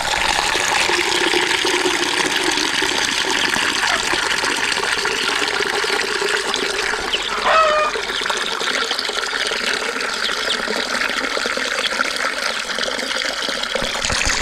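Water running steadily into a container as drinking water is drawn for chickens. A chicken calls briefly about halfway through.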